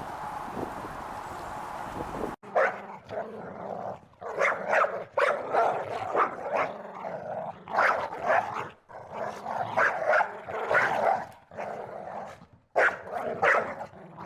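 A dog barking again and again in short, irregular bursts, starting abruptly about two seconds in, after a steady hiss.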